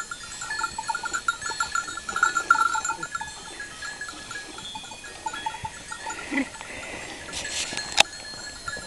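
Bells on a flock of sheep clinking irregularly, with a short bleat about six seconds in and one sharp click near the end.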